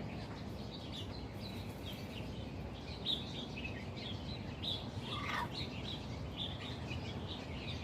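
Birds chirping in many short, high notes, with a couple of calls sliding down in pitch about three and five seconds in, over a steady low background rumble.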